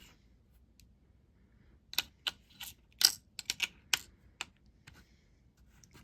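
A quick run of about a dozen light, sharp clicks and taps, the sound of small hard 3D-printed plastic parts being handled and set down, clustered between about two and four and a half seconds in.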